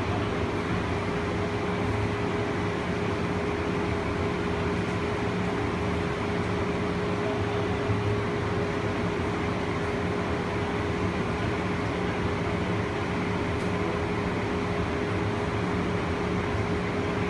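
Cabin noise inside a moving BART Oakland Airport Connector car, a cable-hauled people mover, as it runs along its guideway: a steady rumble with one constant hum held at a single pitch.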